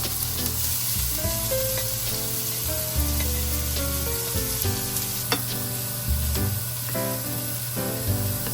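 Bacon sizzling steadily as it fries in a pan, with a few sharp clicks of a utensil against the pan.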